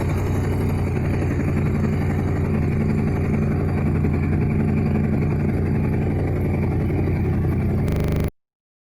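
Yamaha MT-07's parallel-twin engine running steadily at idle through an aftermarket full exhaust system. The sound cuts off abruptly near the end.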